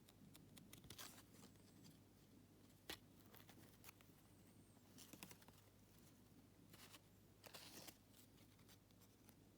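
Faint rustling, crinkling and light clicks of packaging and photo cards being handled, with a sharper click about three seconds in.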